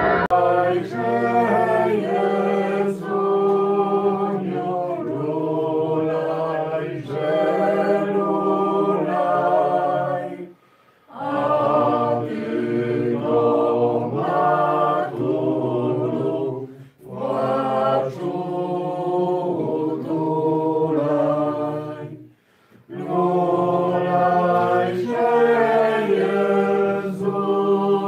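Choir singing a cappella, several voices together in long sung phrases, with brief pauses about 11, 17 and 22 seconds in.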